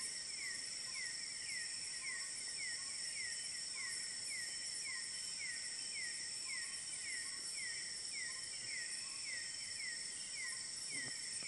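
Night-time insect chorus in the forest: a steady high buzzing drone, with a short falling chirp repeating two to three times a second.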